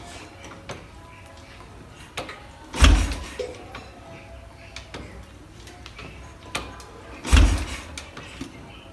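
Royal Enfield Bullet Electra's single-cylinder engine being kick-started: two heavy kicks about four and a half seconds apart, each turning the engine over with a brief deep thump that dies away without the engine catching.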